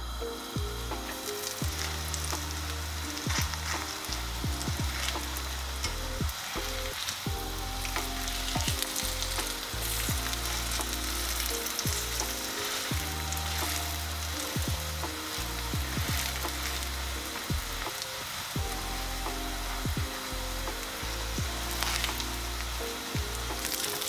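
Onion kattama flatbread sizzling as it fries in a hot cast-iron skillet, a steady crackling sizzle with short pops, and now and then the scrape and tap of a slotted spatula on the pan as the bread is turned.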